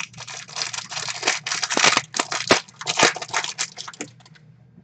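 Clear plastic wrapper of a trading card pack being torn open and crumpled by hand: a dense run of crinkling and crackling that stops shortly before the end.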